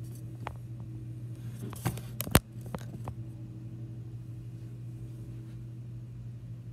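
Handling of a toy's cardboard-and-plastic packaging: scattered light clicks and one sharp snap about two and a half seconds in, over a steady low hum.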